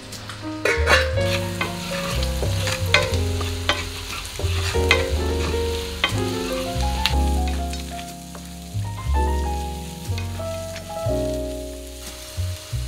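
Minced garlic and then green beans sizzling in a stainless-steel frying pan, stirred with a wooden spatula that scrapes and knocks against the pan. Soft music with slowly changing notes plays underneath.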